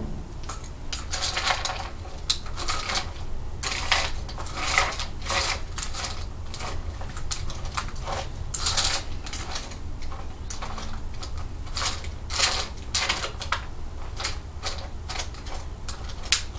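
Dry kibble and wet dog food being stirred together in a bowl: irregular clicking and scraping of the utensil and kibble against the bowl, in short uneven strokes.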